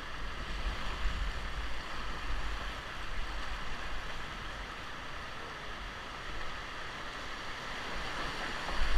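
Steady rush of river water running through shallow rapids around a whitewater raft.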